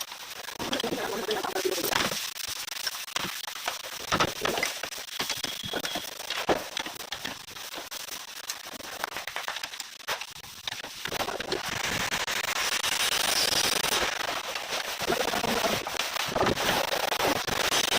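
Tools and metal parts clicking and knocking irregularly as they are handled, with a denser rustling noise over the second half.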